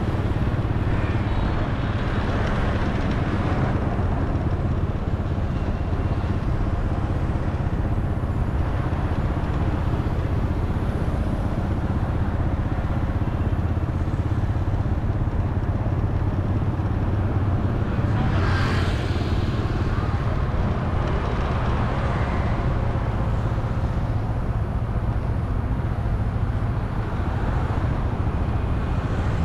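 Steady low rumble of a running vehicle with road noise, and a brief hiss about eighteen seconds in.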